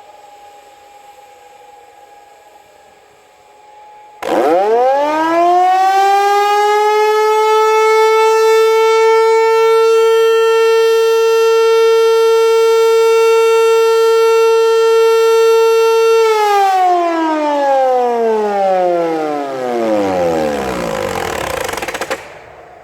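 Hörmann HLS 373 high-performance rotary siren spinning up to a steady tone about four seconds in. It holds the tone for about twelve seconds, then winds down in a long falling wail until it cuts off near the end. This is one twelve-second blast of the German fire-alarm signal (Feueralarm).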